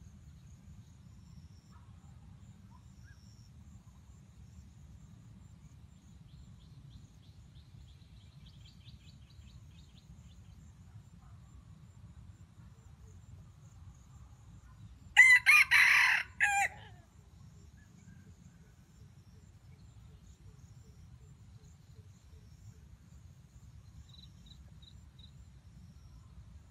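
Red junglefowl rooster crowing once, about fifteen seconds in: a short crow of about a second and a half.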